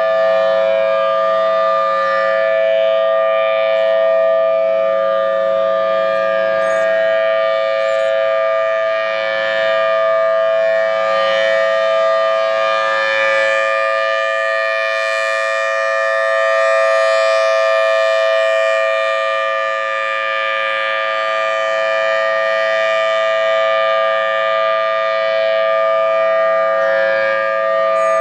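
Federal Signal Thunderbolt 1003 dual-tone siren sounding a steady alert: a two-note chord held at a constant pitch. It slowly swells and fades in loudness as the rotating siren head sweeps around.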